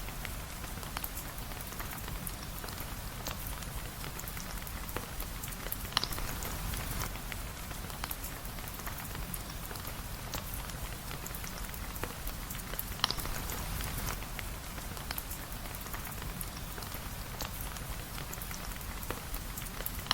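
Steady rain pattering, with many fine drop ticks and two louder sharp clicks about six and thirteen seconds in.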